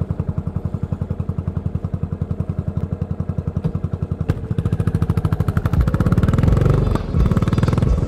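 Yamaha SR400's single-cylinder four-stroke engine through a Goods tapered-cone slip-on muffler, running at low revs with about ten even exhaust beats a second. About four seconds in it is opened up and accelerates, the beats quickening and getting louder, with a short break about seven seconds in.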